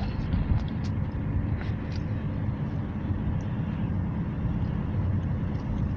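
Steady low rumble of a car's engine and tyres heard from inside the cabin while driving at town speed.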